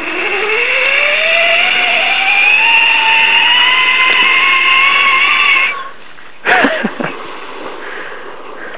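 A zipline trolley's pulley wheels run along the steel cable with a loud whine that rises steadily in pitch as the rider picks up speed. The whine cuts off suddenly about six seconds in, and a splash follows as the rider drops into the water.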